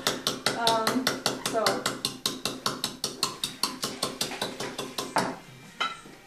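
Wooden pestle pounding seeds in a small wooden mortar, fast and even at about four strikes a second. The pounding stops about five seconds in, and one or two single knocks follow.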